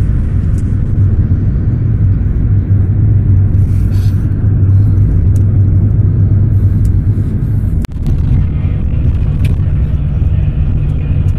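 Steady low rumble of a moving minibus heard from inside the cabin: engine and road noise, with a brief sharp drop about eight seconds in.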